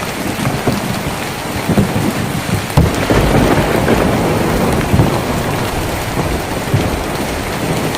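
Heavy rain drumming on a tin roof: a dense, steady patter with many irregular low thuds, and a low rumble swelling about three seconds in.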